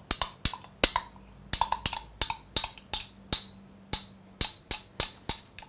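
A glass jar of liquid barley malt extract is tapped again and again, light ringing clinks, as the sticky syrup is shaken out into the dough bowl. There are about three clicks a second at an uneven pace.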